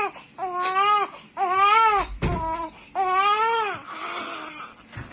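Newborn baby crying in three long wails, each rising and then falling in pitch, with a brief low thump about two seconds in. Near the end the crying trails off into breathy fussing.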